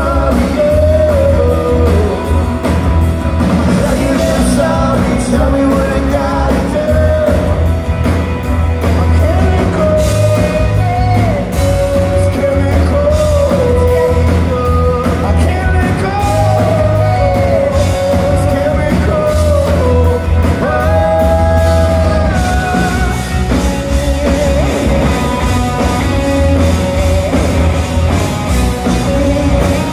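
Live rock band playing loudly: a lead vocalist singing over electric guitars, bass guitar and a drum kit.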